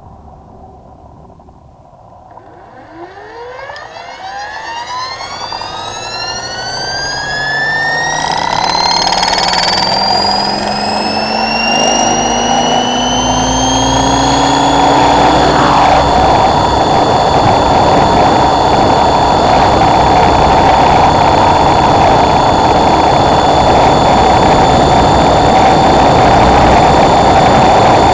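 Thunder Tiger Raptor E550 electric RC helicopter spooling up. The motor's whine rises in pitch for about twelve seconds, growing louder, then holds steady once the rotor reaches head speed.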